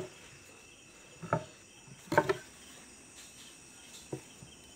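A few brief soft knocks from wooden cricket bats being handled on a rack: one about a second in, a louder one about two seconds in, and one near the end. Under them runs a faint, steady, high-pitched chirring tone.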